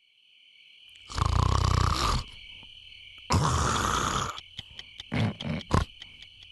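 Loud snoring: two long rumbling snores of about a second each, then a quick run of short snorts and sputters, over a steady high-pitched tone.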